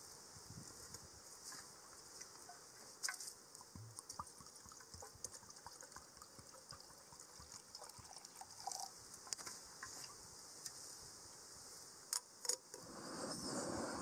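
Steady high-pitched insect chorus, like crickets, with scattered light clicks and taps. Two sharp clicks come about twelve seconds in, then a broad rushing noise rises near the end.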